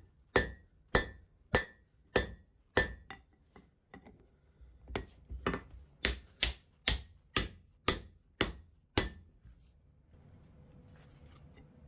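Hand hammer striking a red-hot 25 mm square steel bar on the anvil to bend it 90 degrees: sharp blows about twice a second, with a short pause about three seconds in, stopping about nine seconds in.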